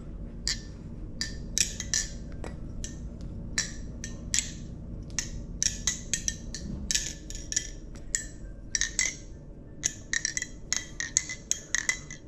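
Nabalis Extrusion 2 balisong being flipped: sharp metallic clicks and clinks as the handles swing and strike the tang pins, several a second in irregular runs, from a tight knife with no blade play.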